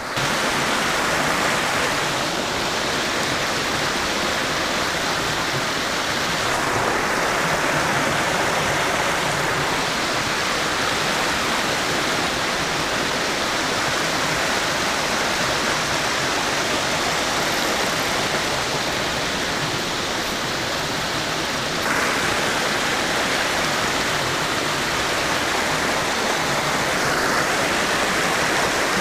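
Creek water rushing steadily over a rocky riffle, small rapids of white water splashing over the stones.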